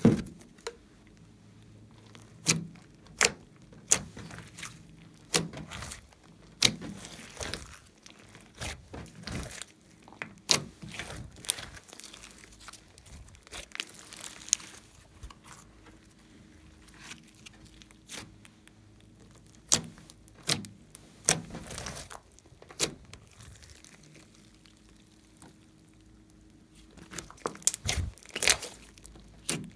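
Large mixed slime being squeezed, stretched and kneaded by hand, giving irregular sticky pops and crackles.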